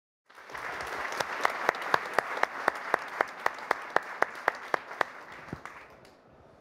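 Audience applauding in a hall, with one pair of hands clapping close by about four times a second, the applause dying away near the end.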